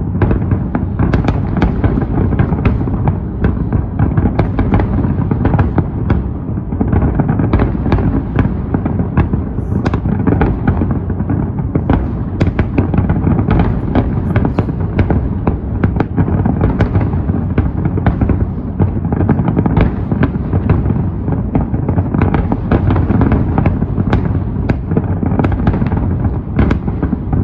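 Fireworks display in a dense, continuous barrage: many sharp cracks and low booms every second with no pause, the intense closing stretch of the show.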